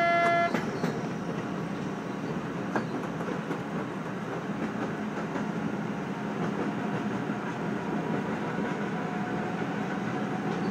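A train running on the rails, a steady rumble of wheels and running gear. It opens with a short, loud pitched tone about half a second long.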